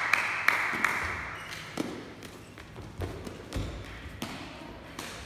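Sharp taps ringing in a reverberant sports hall, several in quick succession in the first second, then a few scattered duller thuds from players moving on the court floor.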